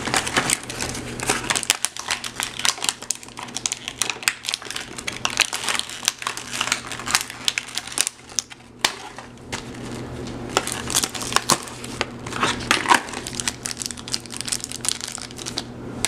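Plastic toy packaging crinkling and crackling as it is handled and opened, in quick irregular rustles.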